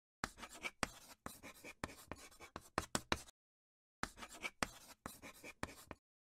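Handwriting on paper: quick scratching strokes in two runs, about three seconds, a short pause, then about two seconds more.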